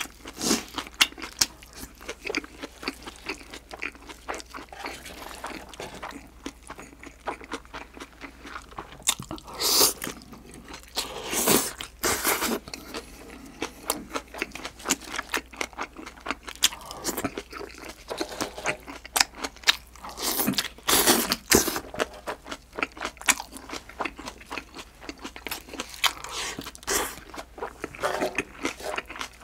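Close-miked chewing and crunching of seasoned raw green onion and grilled pork belly: a steady run of small wet crunches and mouth clicks, with a few louder bursts now and then.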